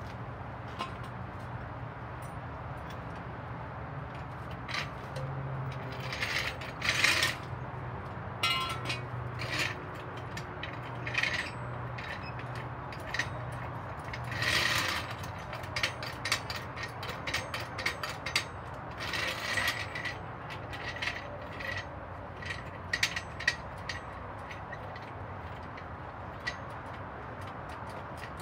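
Ratchet wrench and hand tools working on a car: irregular metallic clicks and scrapes, with short runs of rapid clicking, over a steady low hum.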